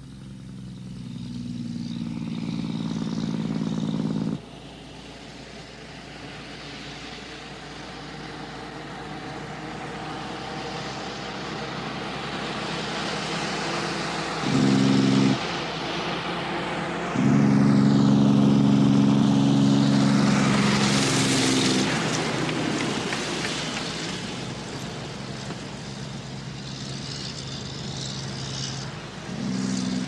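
Heavy truck passing by, its engine labouring, with the compression brake cutting in and out in several abrupt spells of low rumbling engine note. The longest and loudest spell comes as the truck draws level about two-thirds through, then the rush of engine and tyres fades as it moves away.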